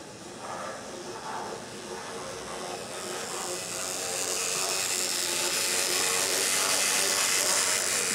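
Model steam locomotive running along its track, a steady rushing, hissing rolling noise that grows louder from about three seconds in as the engine comes close.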